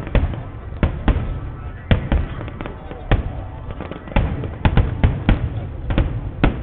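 Fireworks display: shells bursting in an irregular run of about a dozen sharp bangs, with a low rumble between them.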